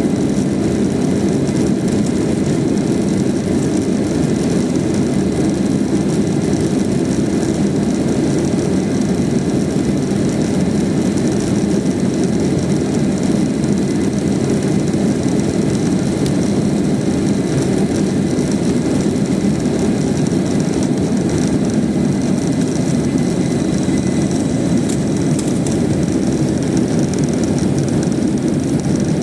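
Jet airliner's engines at takeoff power, heard from inside the cabin as a loud, steady noise through the takeoff roll and liftoff.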